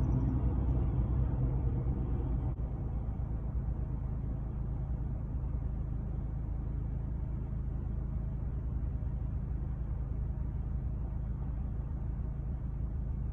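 Steady low rumble and hum of an idling car, dropping slightly in level about two and a half seconds in.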